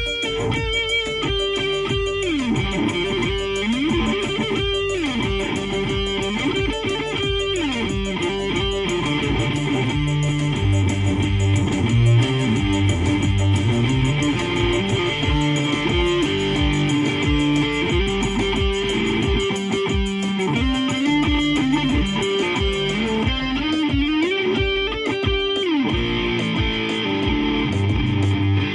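Electric guitar playing a continuous run of fast repeated notes, with notes that slide down and back up in pitch again and again.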